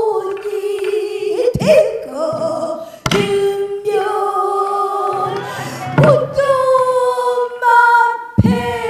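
Female pansori singer singing long, wavering held notes, with about four sharp strokes of the accompanying buk barrel drum spaced through the phrase.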